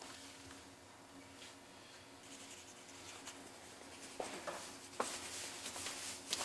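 Pen scratching on paper, writing in a notebook, faint and scratchy, with a few light knocks in the second half.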